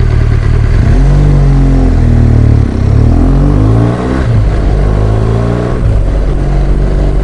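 BMW R1200GS Adventure's boxer twin engine under way, pulling up in revs and dropping back at about three gear changes.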